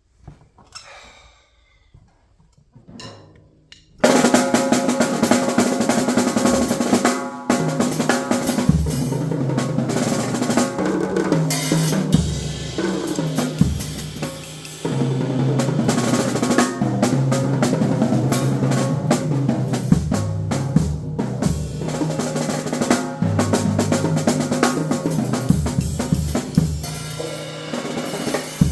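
Drum kit played as a solo, a dense run of strikes that starts abruptly about four seconds in after a few seconds of quiet.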